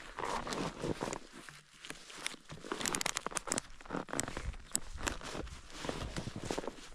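Irregular crunching, rustling and clicking from a snowboarder handling gear and stepping in snow.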